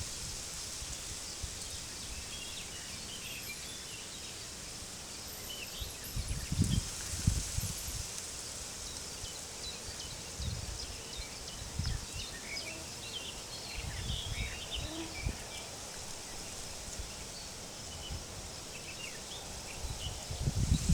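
Open-field nature ambience: wind gusting several times, with low rumbles, over a steady high hiss. Small birds chirp briefly now and then, most around the middle.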